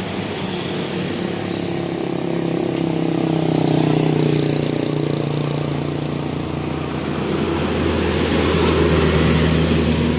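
Bus engine running steadily, its low rumble growing heavier about six seconds in.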